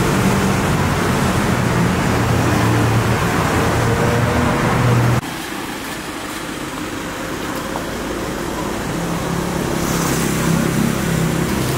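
Steady road-traffic and engine noise with a low hum. It drops sharply about five seconds in and then slowly builds again.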